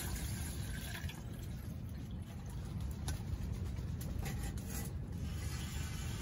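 Hot water poured from a jug into a mixing bowl, with a few light clicks of handling. A steady low rumble of wind buffeting the tent runs underneath.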